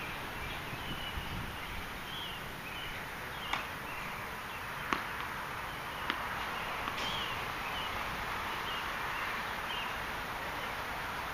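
Distant tennis ball strikes on racket strings: four sharp pops about a second apart, in a rally at the net. Behind them a steady outdoor hiss with short bird-like chirps.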